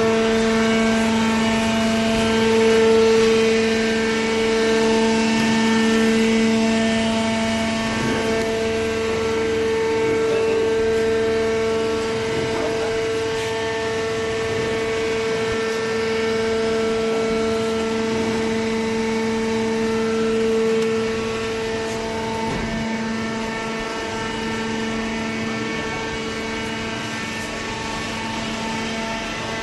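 Hydraulic power unit of a horizontal cardboard baler running: a steady, loud motor-and-pump hum with a low tone and a higher tone above it. The higher tone drops away about three-quarters of the way through, leaving the low hum.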